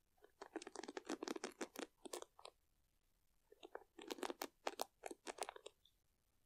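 Wooden-pinned bamboo hairbrush worked close to the microphone, its pins scratched and rubbed in two runs of rapid scratchy clicks. The second run starts about three and a half seconds in.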